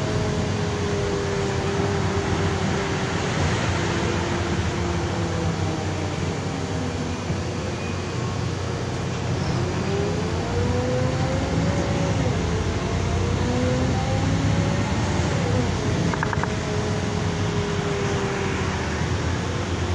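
Inside a moving LiAZ-5292 city bus: steady engine and road rumble, with a drivetrain tone that glides up and down in pitch as the bus changes speed.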